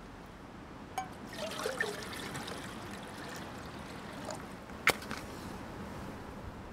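Water poured from a plastic jug into a Jetboil Sumo stove pot, splashing and trickling, with the pitch rising as the pot fills. A single sharp click comes about five seconds in.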